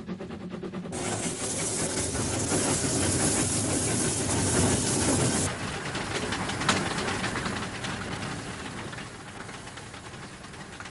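Narrow-gauge steam locomotive working hard, its exhaust beating rapidly, with a loud steam hiss from about a second in that cuts off suddenly near the middle. After that the beats carry on more quietly and fade as the train draws away.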